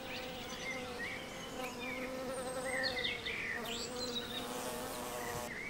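Honeybee buzzing in flight, a steady hum that wavers slightly in pitch.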